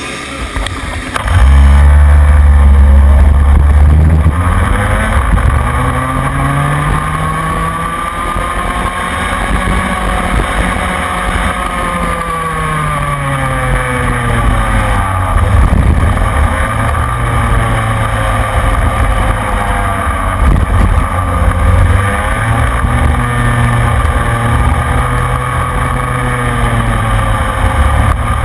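Rotax Minimax kart's two-stroke engine heard onboard at racing speed. It comes in loud about a second and a half in, then its revs rise and fall again and again through the laps, with wind noise on the microphone.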